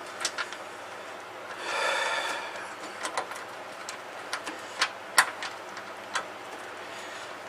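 Small metallic clicks and clinks at irregular intervals from bolts and a hand tool as a skid-plate bolt is started under the UTV, with a short rasping scrape about two seconds in.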